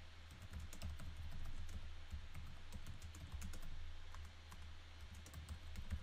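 Typing on a computer keyboard: a steady run of quick key clicks over a low background hum.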